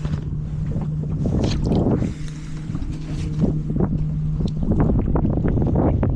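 A fishing boat's motor humming steadily, stopping a little past halfway, with wind rumbling on the microphone and short knocks and splashes of water against the hull.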